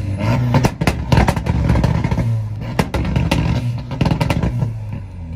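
Tuned car engine revving hard on a two-step launch limiter, the revs rising and falling, with rapid sharp pops and cracks from the exhaust. It dies down near the end.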